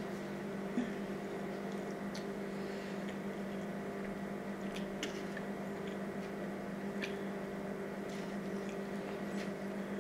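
Chewing with soft, wet mouth clicks and a few light fork clicks in a foam takeout container, over a steady low electrical hum.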